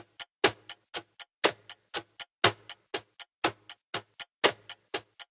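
Background music track: a sparse, clock-like ticking beat, one strong tick with a low thud every second and lighter ticks between.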